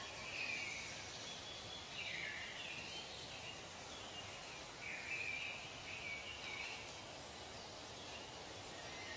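Tropical forest ambience: several birds calling in short chirping phrases at irregular intervals over a steady background hiss.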